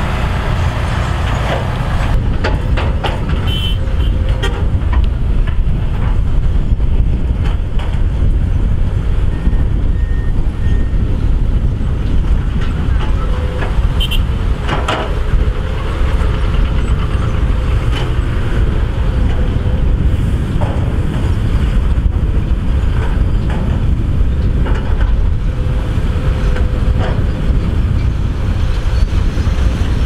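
Heavy diesel construction machinery running steadily at work, with occasional sharp metallic knocks and a faint thin whine that comes and goes.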